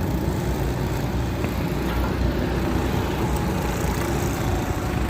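Go-karts running on a track, a steady blend of small engines with a low rumble.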